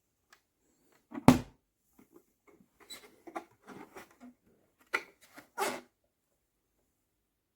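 Handling noise: one sharp knock about a second in, then a string of small clicks, taps and rustles, ending with two louder knocks near the end.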